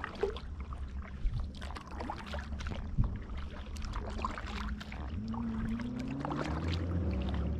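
Kayak paddle strokes in lake water: splashing and dripping, with many small quick splashes. In the second half a low droning hum comes in and rises slowly in pitch, becoming the loudest sound.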